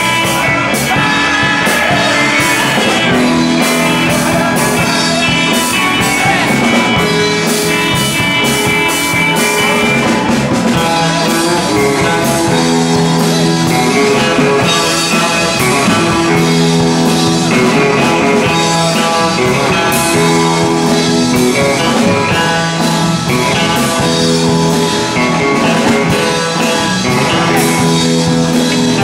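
Live rock band playing: electric guitars and bass over a steady beat, with a man singing lead.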